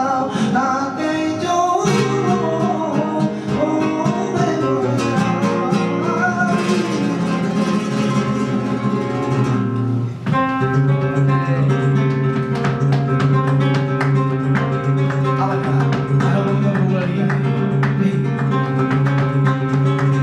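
Flamenco cante: a male singer's voice over flamenco guitar. About halfway through the voice stops and the guitar plays on alone with rapid strums and plucked notes.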